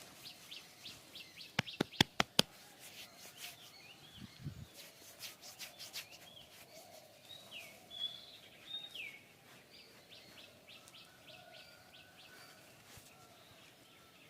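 Small birds chirping again and again in short downward-sweeping calls. About two seconds in, a quick run of five sharp smacks is the loudest sound.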